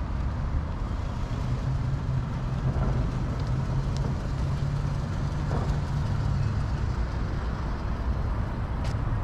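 Road traffic: a vehicle engine running with a steady low hum under the general rumble of the street, the hum dropping slightly in pitch about seven seconds in.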